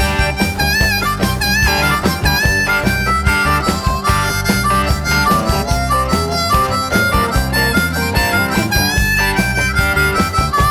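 Instrumental break in a band's song: a harmonica plays a solo with bent, wavering notes over bass and drums keeping a steady beat.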